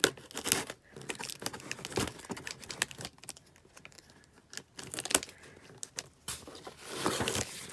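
A corrugated cardboard shipping box being opened by hand: the packing tape along its seam is torn open, with cardboard rustling, scraping and a few sharp clicks. A longer, louder rasp comes near the end as the seam gives way.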